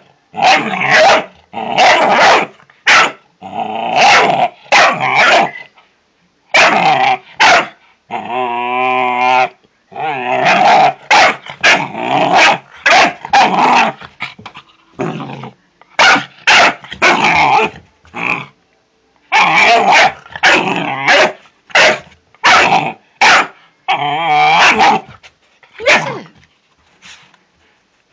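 Doberman puppy barking and growling over and over in short loud calls, with one longer wavering call about eight seconds in: alarm barking at a tumble dryer ball it is wary of.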